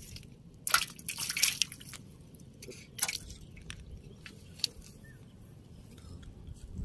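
Water splashing in a shallow steel bowl as a live catfish thrashes in it: a cluster of short splashes about a second in and another around three seconds, then only small drips and flicks.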